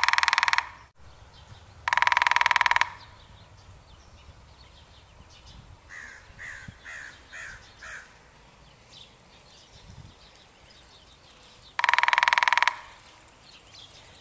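Woodpecker drumming: three fast drum rolls of rapid strikes, each under a second long and ringing with a clear pitch, at the start, about two seconds in, and near the end. Between the second and third rolls, a short series of about six faint bird calls.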